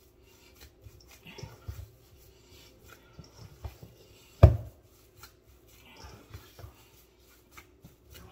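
Light handling clicks and knocks from kitchen work, with one loud, dull thump about four and a half seconds in, over a faint steady hum.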